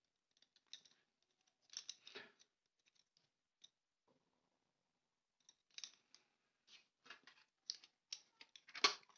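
A handful of wooden Staedtler Mars Lumograph Black pencils clicking and rustling against each other as they are shuffled in the hands. The short, faint clicks come sparsely at first and grow busier in the second half.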